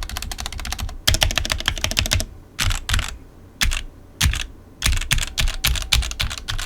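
Typing on a budget mechanical keyboard with Outemu black linear switches, ABS keycaps and a thin plastic case over an aluminium plate: rapid runs of clacky keystrokes for about two seconds, then short bursts of a few keys with pauses between. The board rattles and wobbles as it is typed on.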